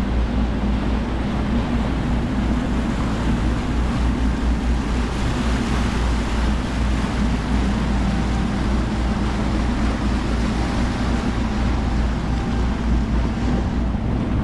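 Catamaran motoring at sea: a steady low engine drone with water rushing past the hulls and through the wake.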